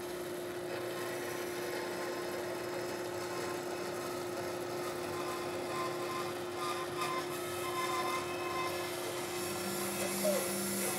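Bandsaw running with a steady hum while its 3/8-inch blade cuts a curved line through a walnut board.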